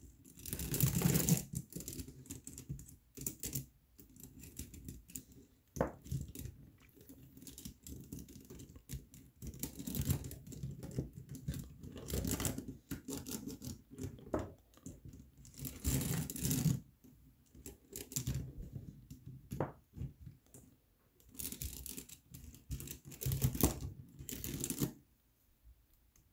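Plastic K'NEX parts of a Chinese-rings puzzle clattering, rattling and clicking as its rope of linked black plastic pieces is pulled and threaded through the rings, in irregular bursts with a few sharp clicks.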